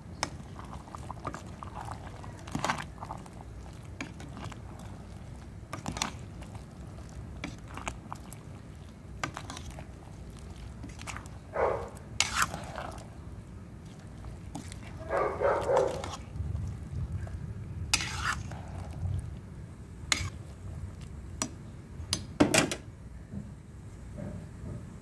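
A pan of afritada stew simmering steadily, with a cooking utensil stirring through it and clinking against the pan now and then, including a few short scraping bursts.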